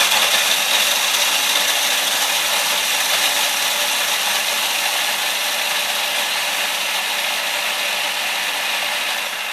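Small electric food chopper running steadily and loudly, its blade grinding graham crackers into crumbs.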